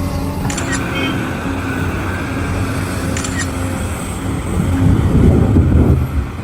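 Heavy engine running steadily with a low hum, swelling into a louder, rougher rumble for a second or so near the end, with a few short high clicks over it.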